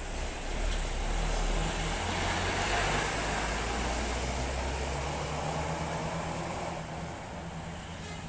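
Intercity bus's diesel engine pulling away past the camera, with engine and tyre noise swelling a second or two in, then fading as the bus drives off.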